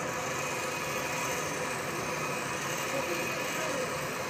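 Steel scissor blade ground against a large spinning grinding wheel, throwing sparks: a steady grinding hiss over the hum of the running machine.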